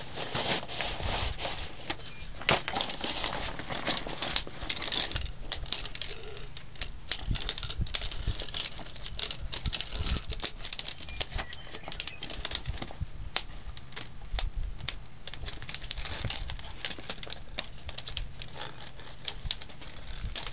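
Fabric rustling as a folding camp chair comes out of its nylon stuff sack, then a long run of clicks and clatters as its aluminium pole sections are snapped and fitted together into the frame.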